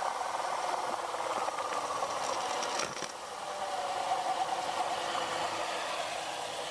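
A 3D-printed Pelton turbine spins under hose-fed water jets, driving two belted motors used as generators. You hear a steady whine over the hiss and rattle of spraying water. About three seconds in, the second nozzle's valve is opened and the whine then sinks lower as the wheel slows, a sign that the unit lacks enough water flow for two nozzles.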